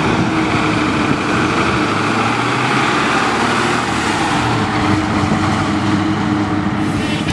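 1969 Ford Mustang Fastback's engine running steadily as the car drives past.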